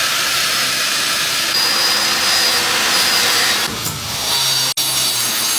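Power tool running at a renovation site: a loud, dense noisy whir with a faint high whine, changing in tone about two-thirds of the way through.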